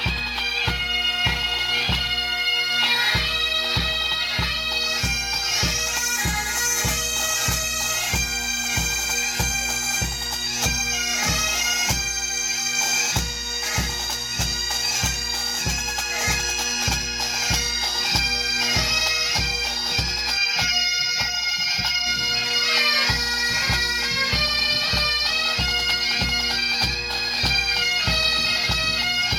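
Bagpipes playing a melody over their steady drones, with an even low pulse about twice a second throughout. The uploader takes it for the pipes being tuned up.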